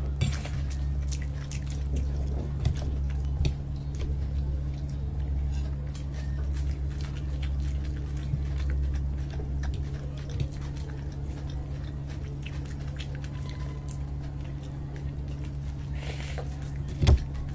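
Close-miked eating: chewing noodles, with small clicks of forks against steel plates, over a steady low hum. A sharper knock comes near the end.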